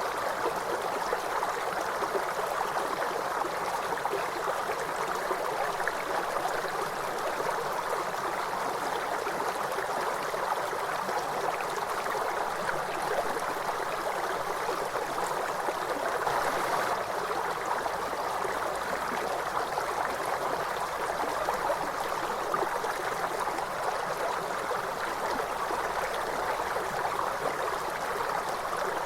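River flowing: a steady, even rush of running water, swelling slightly about halfway through.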